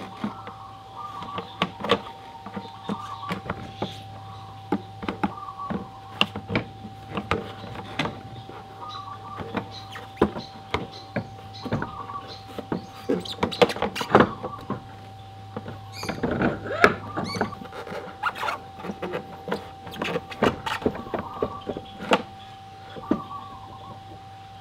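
Irregular clicks, knocks and scrapes of a scooter's rear wheel being handled and slid onto its splined axle over the rear drum brake. The knocking is busiest about halfway through, with a faint steady tone underneath.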